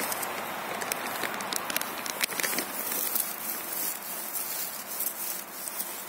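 Rustling and light crackling of dry forest-floor litter close to the microphone, with many small ticks scattered through a steady rustle.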